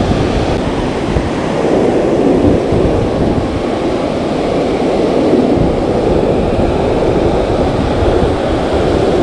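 Ocean surf breaking and washing up the beach in a steady rush of water, with wind buffeting the microphone.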